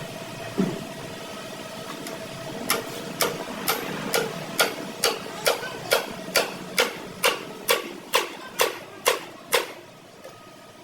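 Hammer blows on metal: about sixteen sharp, evenly spaced strikes, roughly two a second, over a steady background hum.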